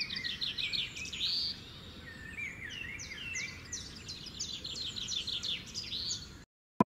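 Birds chirping and singing, a rapid run of short downward-sweeping chirps with some lower whistles, over a faint low background rumble. It cuts off suddenly near the end.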